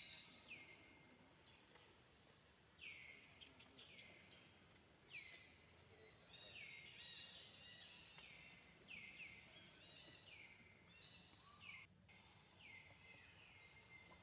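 Faint outdoor ambience of birds calling: short high calls that drop sharply in pitch, repeated over and over, with a few higher chirps in between.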